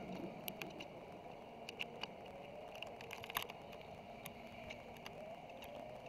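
Faint nest-box room tone with scattered light clicks and taps.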